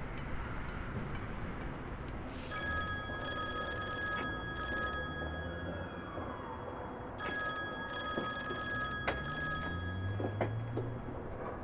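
A telephone ringing twice, each ring a steady electronic multi-tone lasting about three seconds, over a steady low background rumble.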